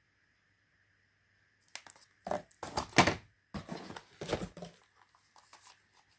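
Packaging being handled, crinkling and crunching in a run of bursts that starts about two seconds in, is loudest near the middle and trails off into small crackles before the end.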